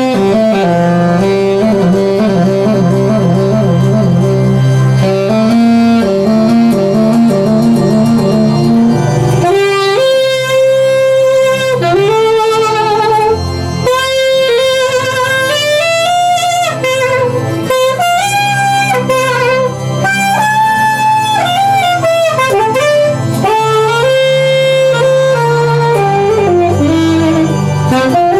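Instrumental music: a wavering, sliding lead melody, horn-like in tone, over a steady repeating bass line.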